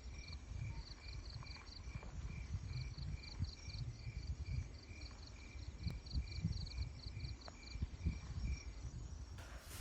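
Insects chirping in a steady, evenly repeating rhythm, about two high chirps a second, over a low uneven rumble.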